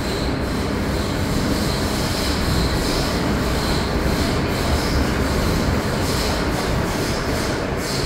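Running noise inside a Hong Kong MTR Metro-Cammell DC electric multiple unit at speed in the tunnel: a steady rumble of wheels and motors, with a high wheel squeal that wavers in strength throughout.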